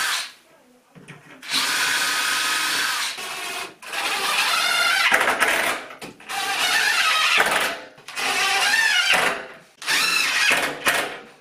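DeWalt cordless drill running in about five short bursts of one to two seconds each, drilling and driving screws into a pine 2x1 frame. The motor pitch shifts under load within some bursts.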